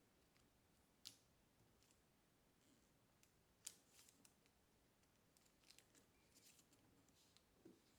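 Faint, sparse crackles and creasing sounds of Kami origami paper being folded by hand. The sharpest crackle comes a little past halfway, and a cluster of smaller ones follows near the end.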